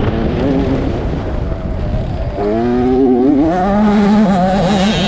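Motocross bike engine heard from an onboard camera, revving up and down as it rides the dirt track. Its pitch climbs sharply about two and a half seconds in.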